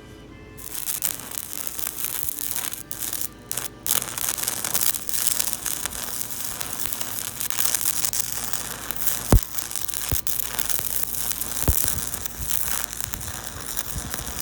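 Stick (arc) welder running on DC, the electrode arc crackling and sizzling steadily. It starts about half a second in and breaks off briefly a few times around three to four seconds in. A few sharp low thumps come later.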